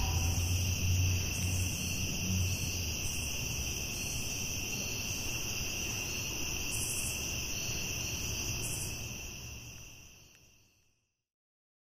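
Insects trilling steadily at several shrill pitches over a low rumble, fading out to silence about ten seconds in.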